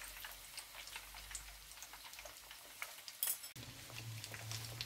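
Faint crackling and sizzling of breaded croquettes deep-frying in hot olive oil. The crackle breaks off about three and a half seconds in, leaving a low hum.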